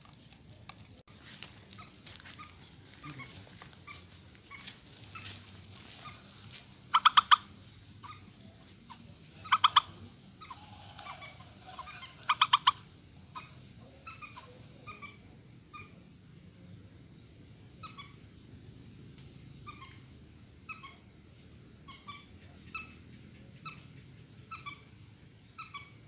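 Purple swamphen calling: short repeated calls throughout, with three loud bouts of rapid harsh calls in the middle.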